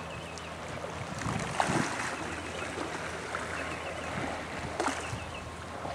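Waterside ambience on a canal: water lapping, with faint splashing of dragon boat paddles in the distance.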